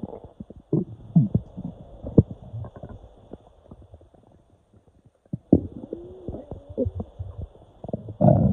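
Stomach and intestines growling with irregular gurgles and pops as air moves through cramping intestines. The sound drops away for a second or two in the middle, then comes back with a squeaky gurgle that wavers in pitch and a louder gurgle near the end.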